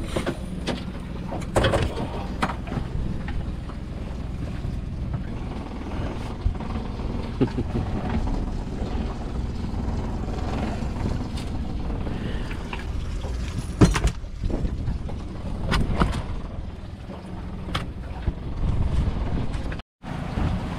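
Outboard motor running steadily on a small aluminium boat, with scattered knocks and clunks from gear and hands on the hull.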